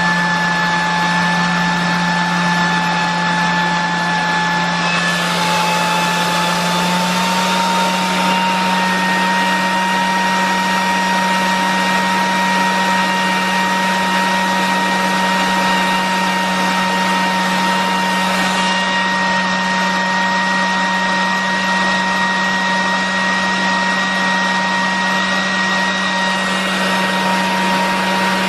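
Miele S8310 (C3 Complete Powerline) canister vacuum's 2200-watt motor running continuously, a steady whine over the rush of air. Its pitch steps up slightly about seven seconds in.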